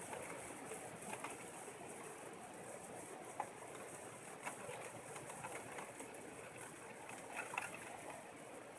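Faint steady outdoor hiss with a few soft ticks and clicks, a lull with no thunder.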